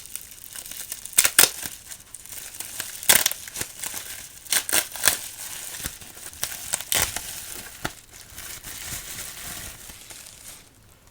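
Plastic packaging crinkling and rustling as it is handled and pulled apart close to the microphone, in irregular sharp crackles that thin out near the end.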